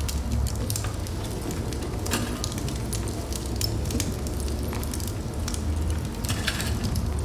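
Fire burning in a fireplace: a steady low rumble of flame with frequent crackles and pops, in thicker clusters about two seconds in and again near the end.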